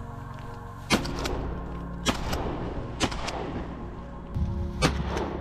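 Shotgun shots, four sharp bangs spread about a second apart, over steady background music.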